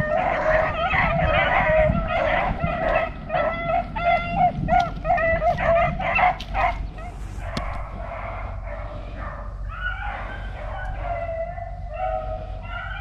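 A pack of beagles baying and yelping together while running a rabbit. The calls come thick and loud for the first seven seconds or so, then turn fainter.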